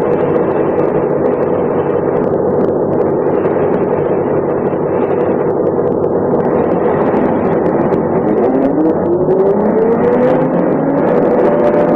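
MAN SL 202 city bus with a manual ZF gearbox, its diesel engine running under way. About eight and a half seconds in, the engine note starts to rise steadily as the bus accelerates.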